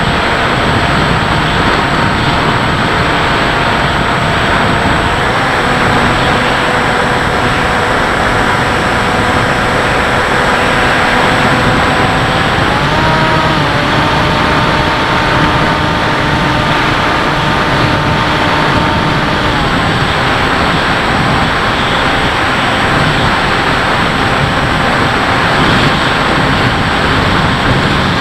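Onboard sound of a Bixler RC foam plane in flight: loud wind rush over the airframe with the thin whine of its electric motor, which rises in pitch briefly about halfway through and then settles.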